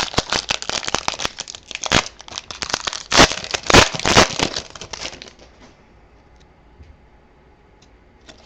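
A trading card pack's wrapper being torn open and crinkled: dense rustling and crackling for about five seconds, then it falls quiet apart from a few faint ticks.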